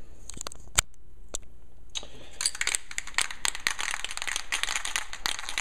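Clear-coat spray can being readied for spraying: one sharp click about a second in, then from about two seconds in a dense run of rapid, irregular clicking and crackling.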